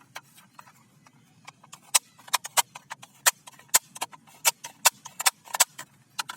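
An irregular series of sharp clicks and taps, a few a second, over faint background noise.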